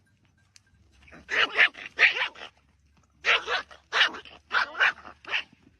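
A dog barking: about a dozen short barks in two quick runs, with a pause between them.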